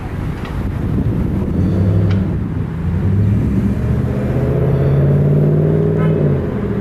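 Pierce Arrow XT fire engine's diesel engine running and revving up, its note rising from about a second and a half in and dropping back near the end.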